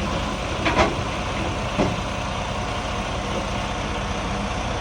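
Steady low rumble of an idling diesel truck engine, with two short clicks about one and two seconds in.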